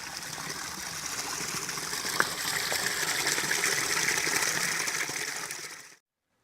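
Small woodland stream flowing, a steady rush of water that swells slightly and then cuts off abruptly near the end, with a single brief click about two seconds in.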